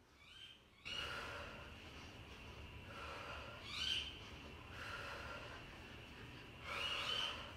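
A woman's hard, rhythmic breathing during kettlebell swings: a short, forceful breath roughly every one to two seconds, in time with the swings.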